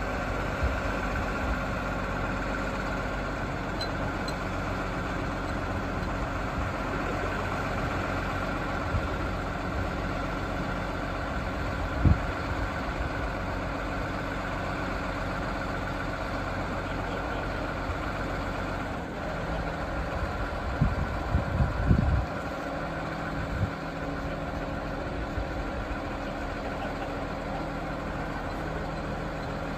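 An engine idling steadily, with a few low thumps about twelve seconds in and a short cluster of them about two-thirds of the way through.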